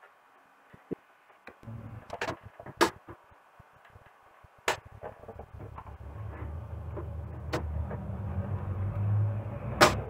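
Handling noise from an opened LCD TV being turned over and worked on: several sharp clicks and knocks of its metal chassis and plastic bezel, the loudest near the end, over a low rumble of the set moving on the bench that grows louder.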